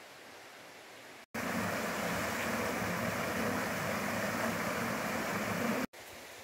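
Small waterfall splashing over rocks into a pool: a steady rushing that starts abruptly about a second in and stops abruptly near the end. Before and after it, only a faint steady hiss.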